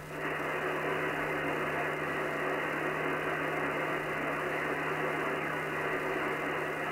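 Shortwave receiver's loudspeaker giving a steady hiss of band noise while it is tuned up through the 27 MHz range in sideband mode, with no station coming through. The hiss is muffled, with nothing above the voice range, and a low steady hum runs under it.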